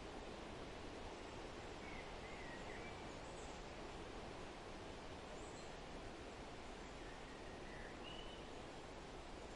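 Faint forest ambience: a steady hiss of wind through trees, with a few brief, faint bird chirps scattered through it.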